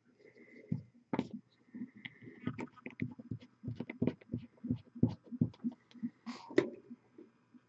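Soft low knocks and rubbing, several a second for a few seconds, over a faint steady hum: handling noise as a miniature is held and painted.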